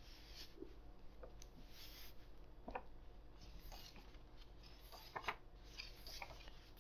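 Faint room tone with a steady low hum and a few soft, scattered clicks and rustles.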